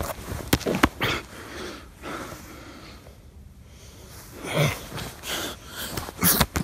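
Heavy, strained human breathing and gasps, with a few sharp knocks in the first second and a quieter lull about halfway through.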